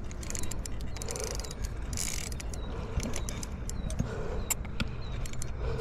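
Spinning reel clicking irregularly, several clicks a second, while a hooked carp is played on the line.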